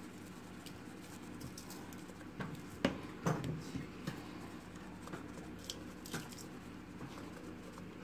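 Powdered seasoning being shaken over raw chicken wings in a bowl: a faint patter with a few light taps, most of them between about two and three and a half seconds in.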